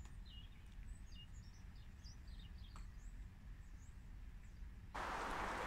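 Small birds chirping and twittering faintly in short scattered calls over a low background rumble. About five seconds in, the sound cuts abruptly to a louder, steady rushing noise.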